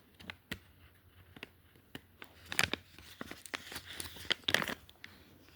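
Packaging of chicken dog treats being handled and torn open by hand: scattered crinkles and tears, busiest in the second half.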